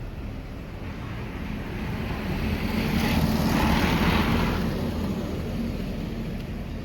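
A motor vehicle passing by, its engine and road noise growing louder to a peak midway and then fading away.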